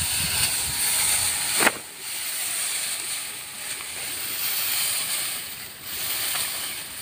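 Dry, ripe rice stalks rustling as they are parted and pushed aside by hand, with one sharp crack about two seconds in.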